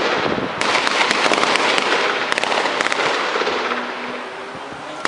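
Dense crackling of gunfire, many shots running together, with a short break about half a second in and a lull near the end; the sound of live rounds fired to break up a street protest.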